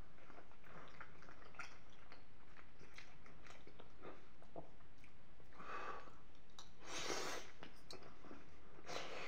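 A person chewing a mouthful of creamy penne pasta with peas and béchamel, close to the microphone: many small wet mouth clicks and smacks, with three louder short hisses in the second half.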